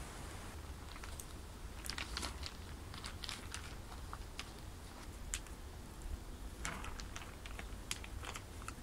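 Clear plastic sheeting crinkling and crackling in short, scattered bursts as it is handled and tugged over a log, over a low steady background rumble.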